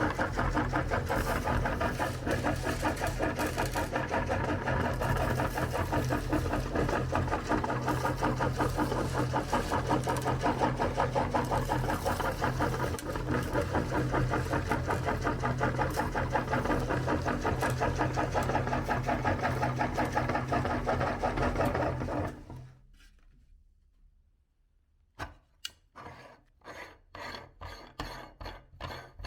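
Electric meat grinder running with a fast, rasping crunch as it grinds hard-shelled M&M candies. The motor cuts off about three-quarters of the way through. After a short pause comes a rapid run of scraping strokes.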